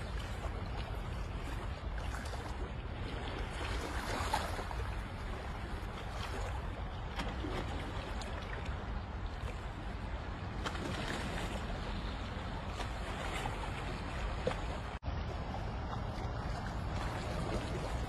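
Calm sea water lapping and splashing gently against shoreline rocks, with a steady low rumble of wind on the microphone. The sound cuts out for an instant about fifteen seconds in.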